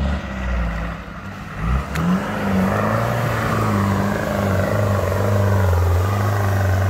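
Off-road 4x4's engine revving, its pitch climbing about two seconds in, then running steady and loud.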